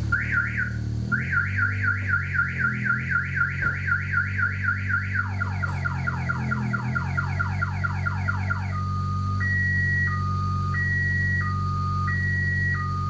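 Multi-tone car alarm siren cycling through its patterns: rapid rising whoops about five a second, then a run of falling sweeps, then a slow two-tone high-low warble. A steady low hum runs underneath.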